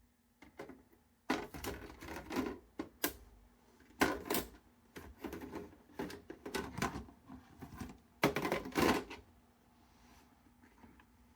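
Plastic side plates of a PlayStation 5 being slid up onto the console and snapped into place: several bursts of plastic clattering and clicks.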